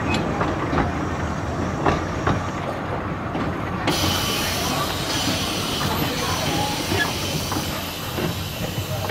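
Miniature steam train's coaches rolling slowly, with a steady low rumble and irregular clicks from the wheels on the rails. About four seconds in, a steady high hiss of steam starts suddenly and keeps going.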